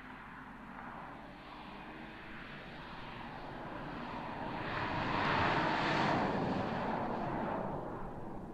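BMW 6-series Gran Turismo driving past, its tyre and engine noise swelling to a peak about halfway through and then fading away.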